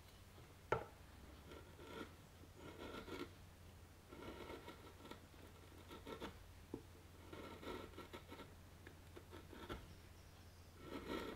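Bench chisel paring glued-in mahogany splints flush on a guitar headstock: quiet, irregular scraping strokes of the blade on wood, with a sharp click about a second in, over a steady low hum.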